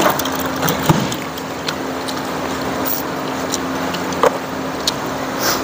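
A steady mechanical hum with a constant low drone, with a few light clicks and taps over it.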